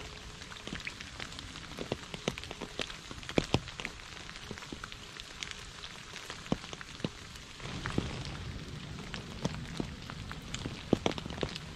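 Rain falling on a puddle and wet leaves: a steady patter with sharp individual drops splashing. About eight seconds in, the rain grows louder and deeper.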